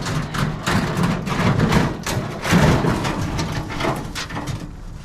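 Continuous clatter of knocks, scrapes and thuds from scrap being handled in a dumpster, easing off near the end.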